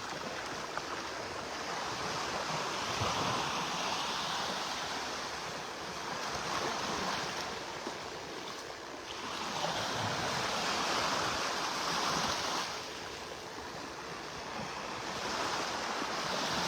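Small Gulf surf washing onto the beach, the noise swelling and falling back about every four seconds.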